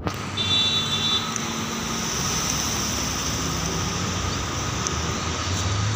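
Steady road traffic noise from cars and trucks passing on a city street, with a brief high-pitched tone about half a second in.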